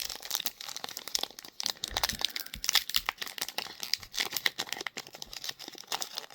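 Crinkling and rustling of Pokémon trading cards and their pack wrappers being handled, with many small irregular clicks and taps.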